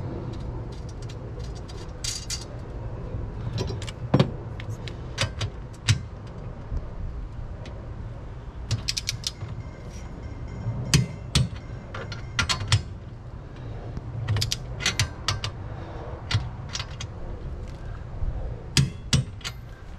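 Torque wrench ratcheting in irregular runs of sharp clicks with metallic clinks as steel jam nuts are tightened down to 45 foot-pounds, over a steady low hum.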